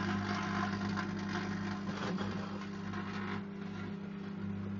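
Microwave oven running with a steady electrical hum, with faint crackling from tin foil arcing inside and making plasma.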